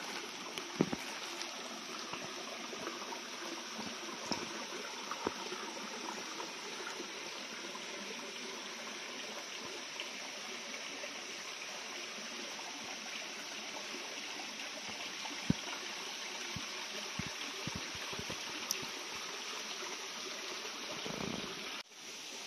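Shallow rocky creek trickling and gurgling over stones, a steady rush of water, with a few scattered sharp clicks. The water sound drops off suddenly near the end.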